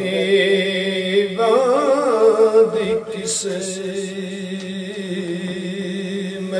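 A man's voice chanting a devotional Sufi verse unaccompanied, drawing out long held notes that waver in pitch.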